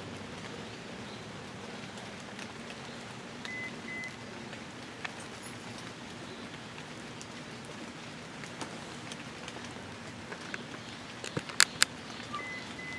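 Steady background hiss with a faint low hum, and no siren sounding. Short double beeps at one pitch come about three and a half seconds in and again near the end, and two sharp clicks a fraction of a second apart come near the end; the clicks are the loudest sounds.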